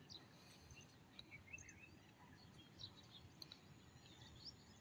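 Near silence: faint outdoor ambience with a low rumble and small birds chirping briefly now and then.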